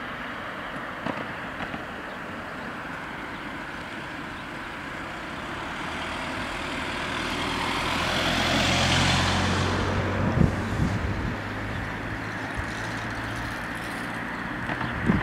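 A car drives past close by, its engine and tyre noise building to a peak about nine seconds in and then fading. There are a couple of sharp knocks just after the peak and again near the end.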